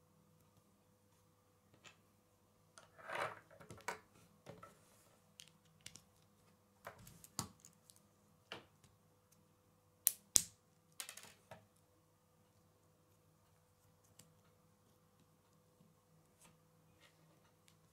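K'nex plastic parts clicking and snapping as a model is fitted together by hand: scattered small clicks and rattles, a busier stretch about three seconds in and two sharp snaps around ten seconds in, with only a few faint clicks near the end.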